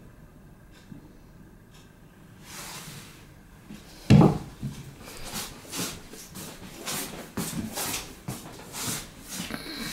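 A cat jumps down and lands on a wooden floor with one loud thump about four seconds in, followed by an uneven run of light knocks, clicks and rustles of movement across the wooden floorboards.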